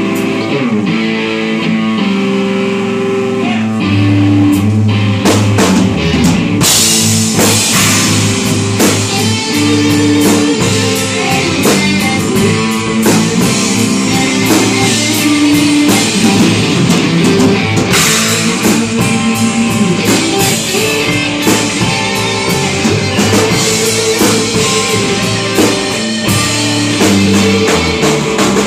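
Live rock band playing loud: two electric guitars, electric bass and a Ludwig drum kit, with steady drum hits under the guitar lines.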